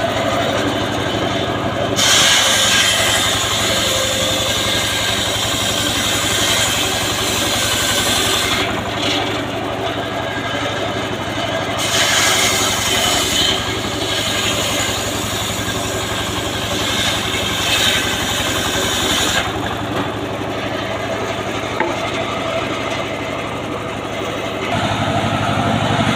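Homemade engine-driven circular saw bench ripping a teak log: the engine runs steadily throughout, and the blade's loud cutting noise starts about two seconds in and comes and goes in several passes with short breaks. After the cutting stops, about three quarters of the way through, only the engine is left running.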